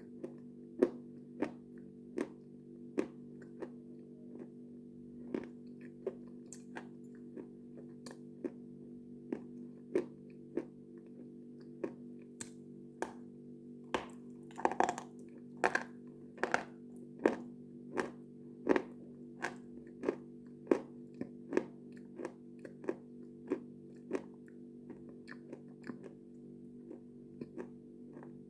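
Crisp, ringing crunches of something brittle being bitten and chewed, about one a second and coming closer together midway. Steady low background music runs underneath.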